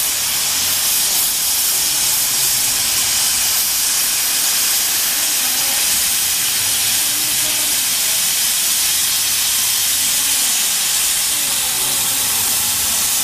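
CNC plasma cutter's torch arc cutting through metal plate: a steady hiss.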